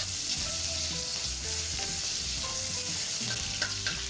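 Chopped garlic and chillies sizzling in hot cooking oil in a pan as they are stirred, with a couple of sharp clicks near the end.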